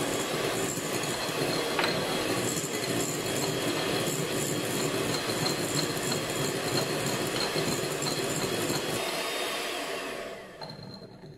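Handheld electric mixer whipping cream in a glass bowl: a steady motor whir with the beaters churning, which winds down and stops about ten seconds in.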